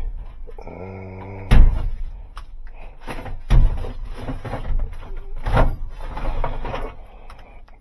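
Cupboard doors and drawers being opened and shut while searching for the right key blank: a short buzzing hum about a second in, then sharp knocks about a second and a half, three and a half and five and a half seconds in, among lighter clatter.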